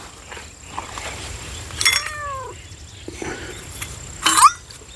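A cat meowing twice: a drawn-out meow that rises and falls in pitch about two seconds in, and a shorter, sharper meow near the end.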